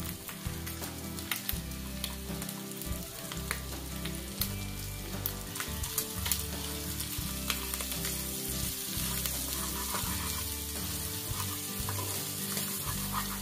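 Snail meat frying in garlic butter in a pan, sizzling steadily, while a wooden spatula stirs and scrapes it, making frequent short clicks and taps.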